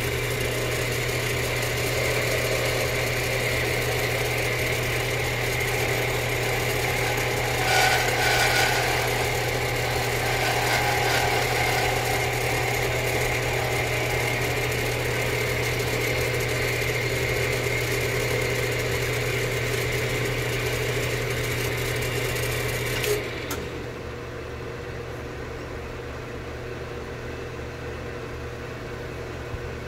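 A shop machine's motor running with a steady hum and a brief louder, harsher patch about 8 seconds in. About 23 seconds in there is a click and the sound drops to a quieter steady hum.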